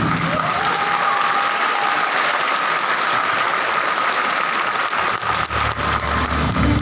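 Audience applauding, with the dance music coming back in near the end.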